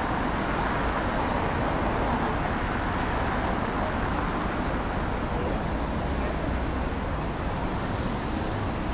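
Steady road traffic noise of cars and a bus moving around a large traffic circle, heard from an open upper deck: an even, unbroken rumble with no single event standing out.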